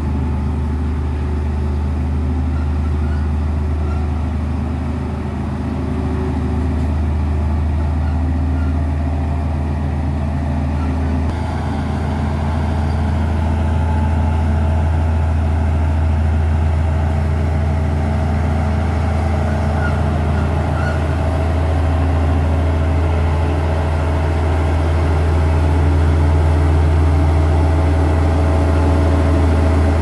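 Komatsu D58E crawler bulldozer's diesel engine running steadily under load as the blade pushes a pile of topsoil: a loud, even, low drone.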